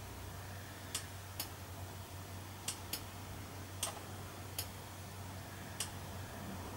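Computer mouse clicking the on-screen pan-tilt-zoom controls of a security camera recorder: sharp single clicks, some in quick pairs, spaced irregularly, over a faint low steady hum.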